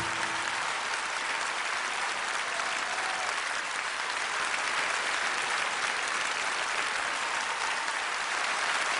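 A large concert-hall audience applauding steadily at the end of a song.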